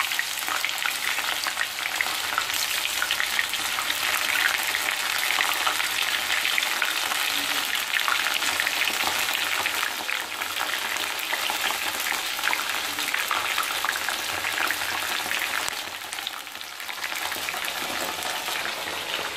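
Thin ivy gourd slices deep-frying in hot oil in a cast-iron kadai, a dense crackling sizzle from a freshly added batch, while a wire spider strainer stirs through the oil. The sizzle dips briefly near the end.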